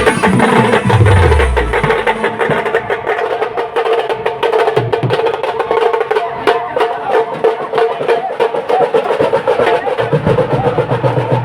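Loud band music: fast, dense drumming over a steady held tone, with heavy low drum sounds at the start and again near the end.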